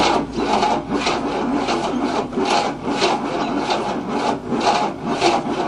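1967 Cadillac 429 V8 being turned over by its starter motor, cranking slowly in even pulses about three times a second without catching. It is too slow to fire, on a weak battery.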